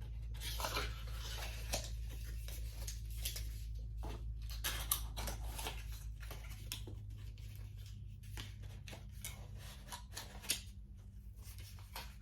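Small clicks and rustles of a cosmetic compact and its cardboard packaging being handled, irregular throughout, over a steady low hum.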